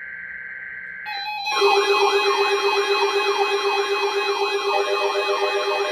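Emergency alert warning sound. A steady high electronic tone for about a second, then a loud, rapidly warbling siren-like alarm with a steady pulsing low tone beneath it.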